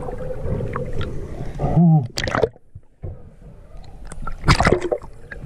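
Water gurgling and sloshing around a spearfisher's camera as it moves through the river, underwater and at the surface, with two loud splashes, about two seconds in and about four and a half seconds in.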